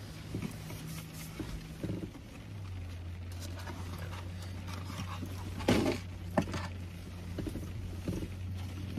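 Mouth noises of people eating in a car: chewing and small clicks, with a short loud hum-like vocal sound about six seconds in. A steady low hum from the car runs underneath and grows a little stronger about two and a half seconds in.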